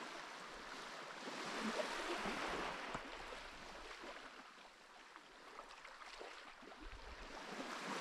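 Sea waves washing onto a sandy beach, swelling and easing: louder about two seconds in, dropping off in the middle and building again near the end.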